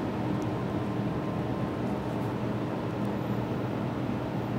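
Steady machine hum and whir of a CT scanner while the patient is positioned under its laser alignment light, even and unchanging throughout.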